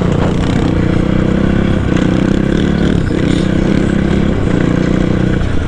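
Motorbike engine running at steady high revs. The note breaks off briefly about two, three and four seconds in, then drops away near the end, with wind rush underneath.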